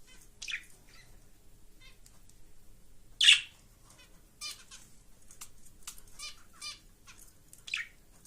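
Budgerigar warbling its chattering song: a string of short, scattered chirps and trills, with one loud, sharp call about three seconds in.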